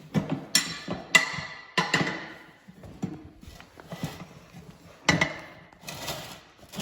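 Steel tire bars striking and prying against a steel implement wheel rim during a hand tire change: a series of sharp metal clanks, each ringing briefly.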